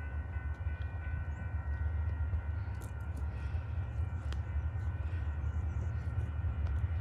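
An approaching train, heard as a steady low rumble that slowly grows louder, with a few faint steady high tones above it.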